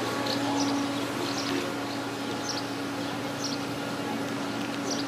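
Outdoor street ambience: a steady low hum, with short high chirps of small birds every second or so.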